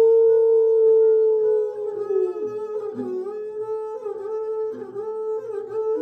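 A long-necked bowed string instrument holds a long, sliding melody note that glides up into pitch, dips and wavers about two seconds in, over a steady drone.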